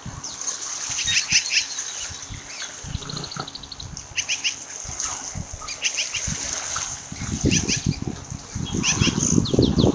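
Osprey chirping in several quick series of short, high whistled notes. Under the calls, low thumps and crackle from the nest camera's faulty, distorted audio grow louder near the end.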